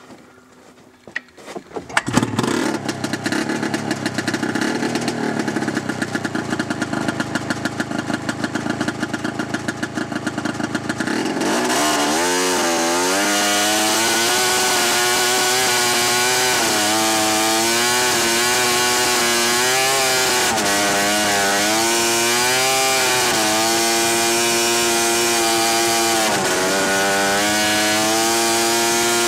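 A snowmobile engine starts about two seconds in and idles with a fast, rough pulse. From about eleven seconds in it is running under way, its pitch rising and falling again and again as the throttle is worked.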